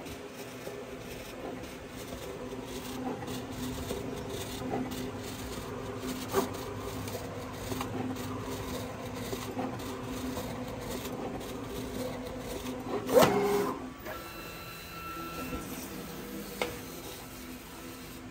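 SAGA A3 Pro decal die-cutting machine cutting a sticker sheet: a steady motor whir from the cutting head and feed rollers, with frequent small ticks as the blade carriage moves. About thirteen seconds in there is a brief, louder burst of mechanism noise.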